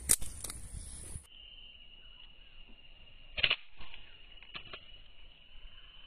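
A slingshot fired: a sharp snap as the rubber band is released, with a weaker snap half a second later. After that there is a steady faint high whine, with a brief noisy burst about three and a half seconds in and a few soft taps.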